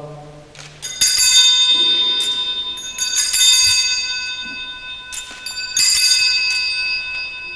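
Altar bells rung during the elevation of the host in three main bursts, about one, three and six seconds in, each ringing on with long steady tones.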